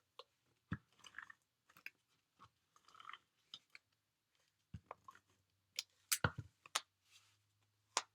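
Cardstock being handled and pressed together on a craft table: scattered light taps, clicks and brief paper rustles, with a cluster of louder taps about six seconds in.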